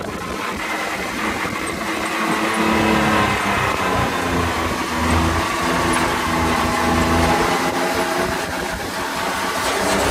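Off-road buggy engine running under throttle while being driven on a dirt track, its pitch rising and falling as the revs change, over a steady rush of wind noise.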